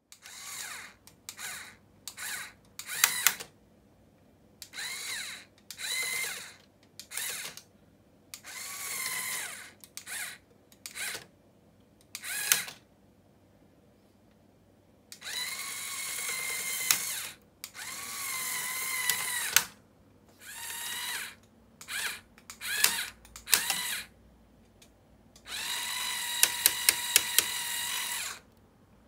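Small electric motor driving the gear train of a motorized brick-built car door, whining in many short start-stop bursts and then in longer runs of two to three seconds, its pitch wavering as it works. During the last run, near the end, a quick row of sharp clicks sounds over the whine.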